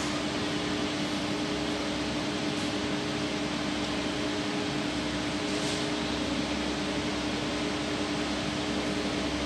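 Steady hiss with an even, low electrical-sounding hum and no distinct events: room background noise, like a fan or air conditioner running.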